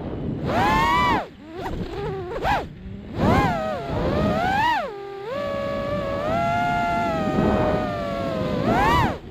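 FPV quadcopter's motors and propellers whining, the pitch rising and falling sharply with the throttle several times, holding steadier for a stretch in the middle, over a rush of wind.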